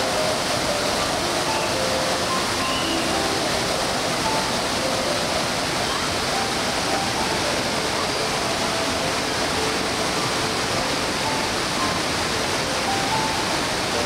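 Devkund waterfall pouring off the hill into the pool below, a steady, even rush of falling water.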